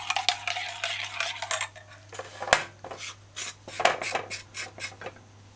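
A metal spoon stirring liquid pancake mixture in a small glass bowl, scraping and clinking rapidly against the glass. About halfway through, this gives way to a string of separate light knocks of a spoon against a glass bowl.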